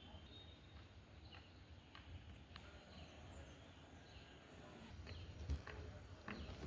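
Faint outdoor ambience: a low steady rumble of wind or handling noise, with a few faint short bird chirps and scattered soft clicks.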